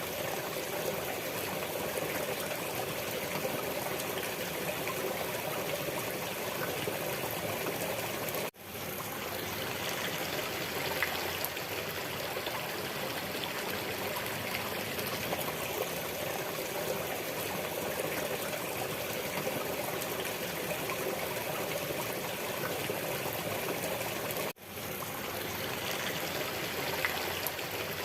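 Steady trickling of a flowing stream. It cuts out twice, about eight and twenty-four seconds in, and fades back in within a second each time.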